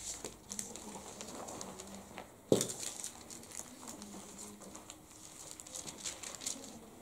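Quiet pause in a room: faint rustling, like Bible pages being turned, with a few low hums and one sharp thump about two and a half seconds in, the loudest sound.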